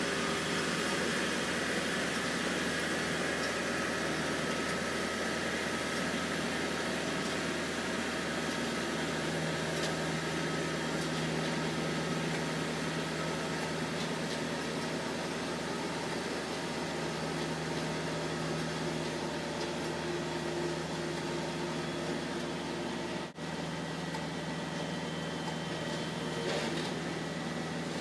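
Kubota tractor engine running steadily while it powers an MTE pine straw baler. The sound is broken once by a very short dip near the end.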